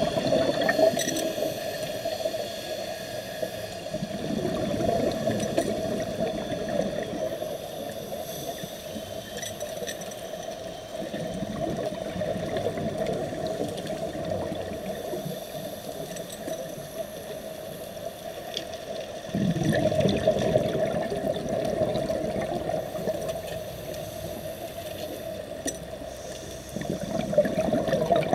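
Underwater bubbling and rushing water heard through a submerged camera, typical of a scuba diver's exhaled bubbles. The bubbling swells every several seconds with each breath, and is loudest in two stretches in the second half.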